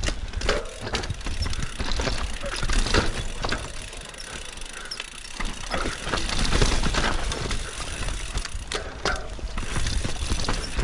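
Mountain bike riding down a rough trail: tyres and frame rattling, with frequent sharp knocks and clatters. Wind rumbles on the microphone throughout, and the level rises and falls with the terrain.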